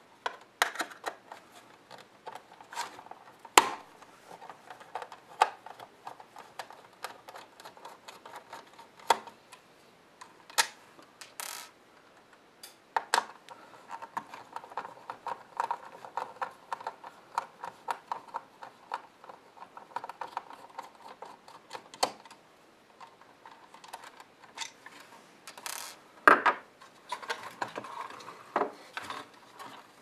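A hand screwdriver backing screws out of a plastic thermo-electric dehumidifier housing: fine rapid squeaky ticking of the turning screws, broken by sharp clicks and knocks of the tool and parts, the loudest about three and a half seconds in and again near the end.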